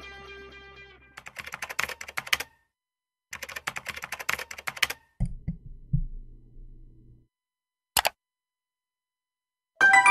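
Computer keyboard typing: two quick runs of key clicks, then a few low thuds, a single sharp click, and a short bright chime near the end. Music fades out at the start.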